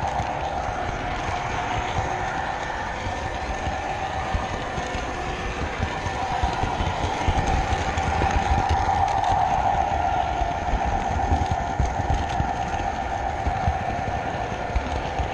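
Model train's electric motor whining steadily as it runs, with the rumble and light clicking of its wheels on the track heard from on board the moving train. The whine grows louder for a few seconds midway.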